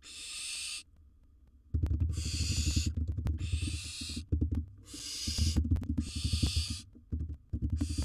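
Barn owl giving a series of long, rasping hisses, about six in a row, each under a second. From about two seconds in, a loud, low crackling scuffle of movement against the nest box runs close to the microphone beneath them.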